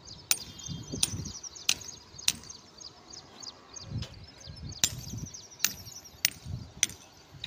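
Sharp metallic clinks of a metal tool striking steel rebar, in two runs of four strikes about half a second apart with a pause between them, each with a short ring. Birds chirp faintly behind.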